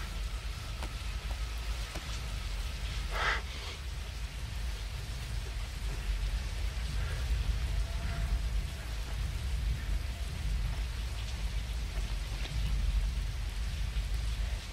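Steady rain falling, with a deep low rumble underneath and a short burst of hiss about three seconds in.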